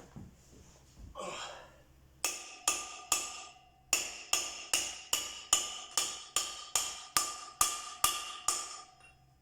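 Hammer tapping on a socket to drive a new wheel bearing into a motocross bike's rear hub, pushing on the outer race: three ringing metallic strikes, a short pause, then a steady run of about a dozen more at roughly two and a half a second.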